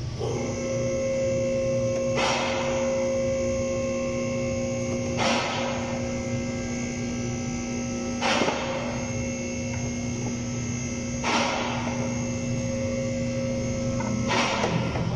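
A steady electrical hum with many overtones switches on just after the start and cuts off near the end, with a short hissing swell about every three seconds.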